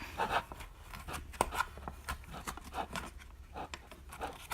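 Packaging being handled while a die-cast scale model is taken out: a run of small clicks, taps and plastic or cardboard rustles, with one sharper click a little over a second in.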